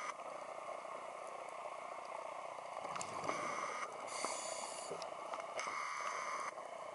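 Underwater scuba diver breathing through a regulator: two drawn breaths with a whistling hiss, over a steady underwater hiss with a few faint clicks.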